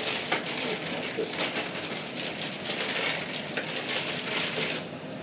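Thin clear plastic bag crinkling as it is handled and worked open, a dense run of small crackles that stops about five seconds in.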